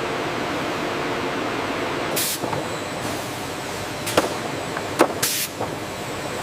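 Steady noise of factory machinery running, with two short bursts of compressed-air hiss and a couple of sharp clicks.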